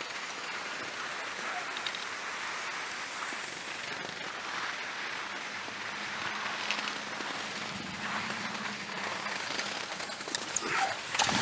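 Riding a surface ski lift (a pole-and-platter tow): a steady hiss of snow sliding under the rider as they are towed uphill. A faint low hum joins in about six seconds in as the rider passes a lift tower and its cable sheaves. Louder crunching on snow comes near the end.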